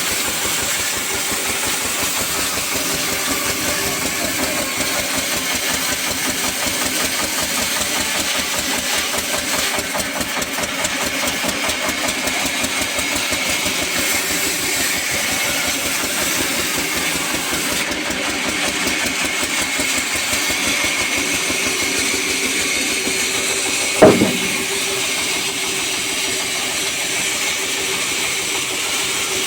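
Sawmill machinery running steadily with a fast, engine-like chugging rhythm and a faint steady high whine, with one loud knock partway through.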